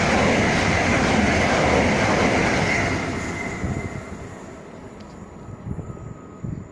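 Train passing on the line: a loud rush of wheels and air with a steady high whine, dying away over the second half as it recedes.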